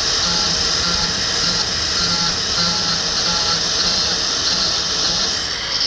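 Grinder with a grinding wheel working aluminum: a steady loud hissing whir with a low hum that pulses on and off about twice a second.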